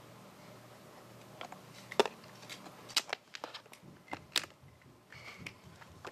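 Scrabble tiles being handled and set into the plastic grid of a deluxe Scrabble board: a quiet first second, then a dozen or so short, sharp clicks and taps, irregularly spaced.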